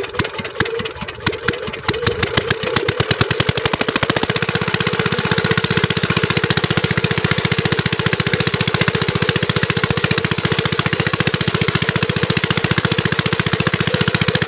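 Small single-cylinder Chinese diesel engine driving an irrigation water pump, catching after hand-cranking: uneven puffs that quicken over the first four seconds or so, then a fast, steady running beat. Water from the pump outlet gushes and splashes under the engine.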